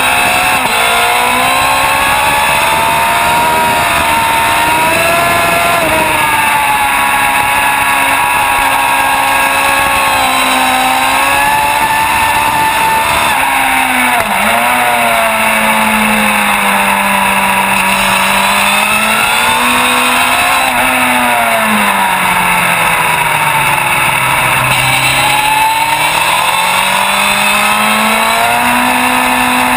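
Onboard sound of a sport motorcycle's engine at high revs under racing load, its pitch rising as it accelerates and dropping as it slows. It dips briefly about halfway through and more deeply near the end before climbing again, over a steady rush of wind.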